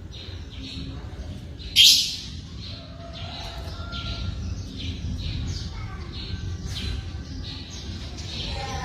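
Birds calling, with short high chirps repeating about twice a second. A single loud sharp noise breaks in about two seconds in.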